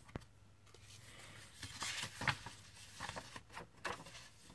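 Faint rustling and crinkling of paper being handled, in short bursts about two seconds in and again a second or so later.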